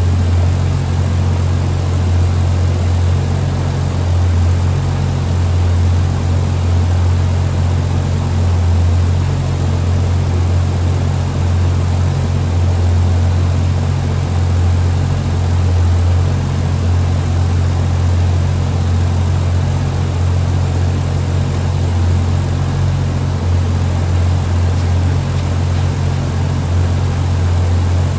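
The MK3 Supra's engine running on the hub dyno, holding one steady speed with a deep drone and no revving.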